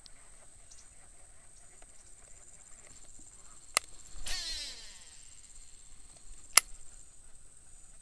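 Insects droning steadily at a high pitch, broken by a sharp click just before four seconds in, a brief whirr that falls in pitch, and a louder sharp click about two seconds later.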